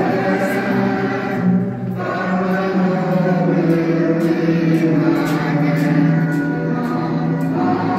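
Choral music: a choir singing sustained chords, the harmony changing about two seconds in and again near the end.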